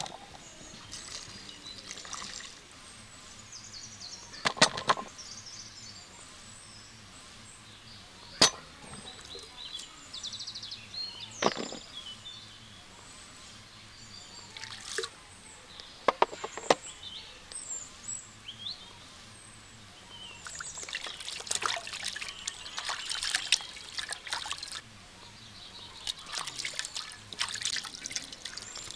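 Kitchen work: liquid trickling and splashing, with a few sharp clicks and knocks scattered through. The splashy crackle becomes denser in the last eight seconds or so.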